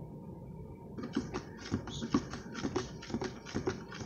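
Fast, uneven clicking and scraping of a spoon against a small bowl as slime is stirred, starting about a second in.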